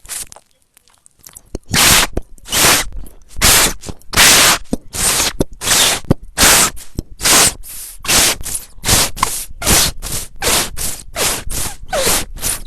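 Loud, harsh scraping noise in rapid bursts, about two a second, starting about a second and a half in.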